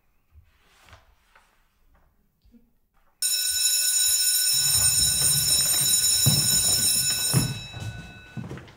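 Electric school bell ringing, starting suddenly about three seconds in and lasting about four and a half seconds before fading: the bell for the end of a lesson. Under it and after it, chairs shifting and footsteps as pupils get up.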